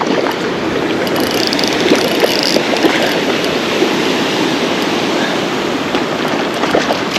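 Rushing stream water, a steady loud splashing hiss close by.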